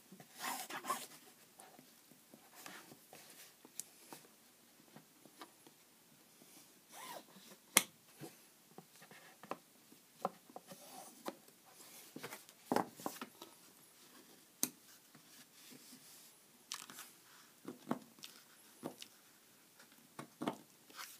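Glued bookcloth being turned in over a board tray wall and pressed and rubbed down by hand to chase out air pockets: faint, irregular rubbing and crinkling with a few sharp clicks and taps.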